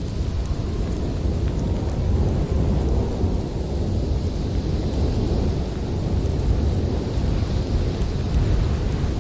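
Snowstorm wind blowing hard: a deep, steady rumble with a higher hiss that swells and eases a few times.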